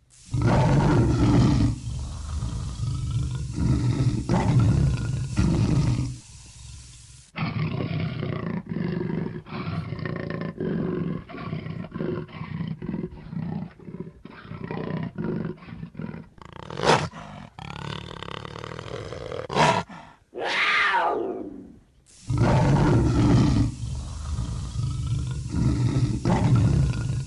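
Big cat roaring in a series of deep, rasping grunts, several a second, with one long call falling steeply in pitch about twenty seconds in.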